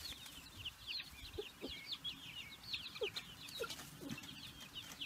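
A group of young chicks peeping: many short, high, falling peeps, several a second and overlapping, with a few lower short calls mixed in.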